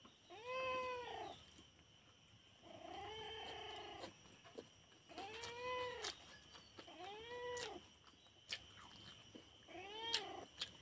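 A cat meowing repeatedly: about five drawn-out, arching meows, with a few sharp clicks in between.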